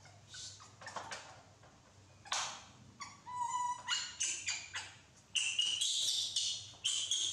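Baby macaques making short, high-pitched squeaks and whimpers, thickest in the second half, with a brief burst of hiss about two seconds in.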